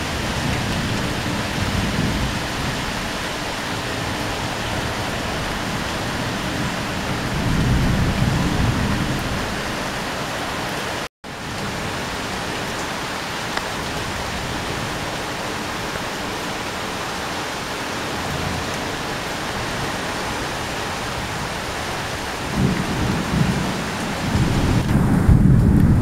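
Heavy rain falling steadily on a corrugated sheet roof in a strong wind, with low rumbling swells a few times, loudest in the last few seconds. The sound cuts out for an instant about 11 seconds in.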